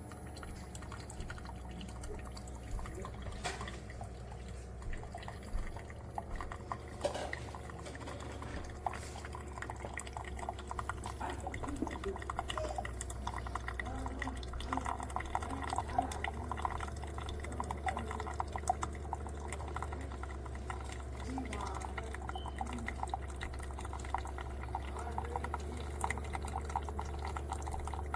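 Single-serve coffee maker brewing: liquid trickling and dripping into a cup in many small irregular drops and splashes over a steady low hum. The dripping gets busier about halfway through.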